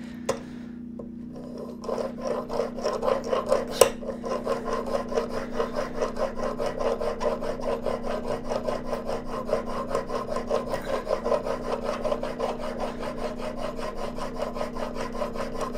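Steel plane iron held in a wheeled honing guide being rubbed back and forth on a wet 1200-grit Trend diamond plate, a scraping rasp in quick, even strokes that starts about two seconds in; honing the bevel to refine the burr after the 600 grit.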